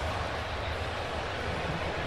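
Steady crowd noise from a packed football stadium, an even roar with no single standout sound.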